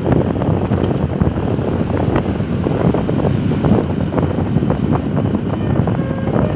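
Road traffic passing close by: a steady rumble of engine and tyre noise, with wind buffeting the microphone.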